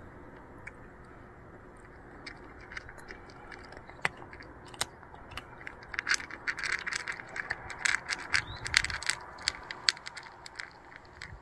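A cat crunching dry kibble from a bowl: irregular crisp clicks of chewing that begin a couple of seconds in and come thickest and loudest in the second half.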